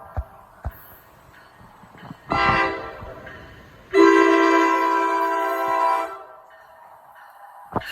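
Locomotive multi-chime air horn: a short blast, then about a second later a long blast of about two seconds, following a blast that ends just before. This is the short-then-long ending of a grade-crossing horn signal.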